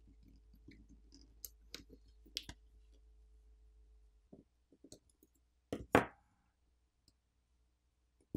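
Light, scattered clicks and taps from fingers working a smartphone's charging-port sub-board and its connectors free of the opened frame. The loudest is a quick double click about six seconds in.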